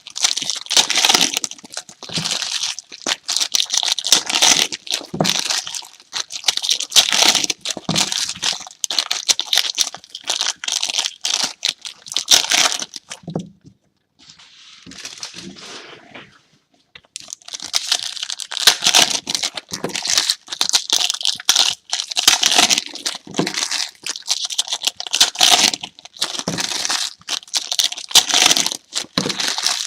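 Trading-card pack wrappers being torn open and crinkled by hand, an irregular crackling and ripping with a short quieter pause a little before the middle.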